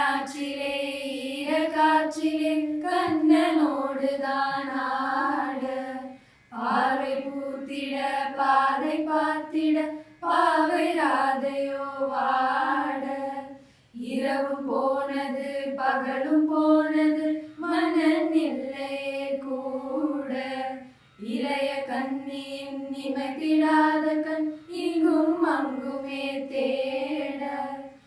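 A group of girls singing a devotional Navarathri song together, in long phrases of held, gliding notes with brief breaks for breath between them.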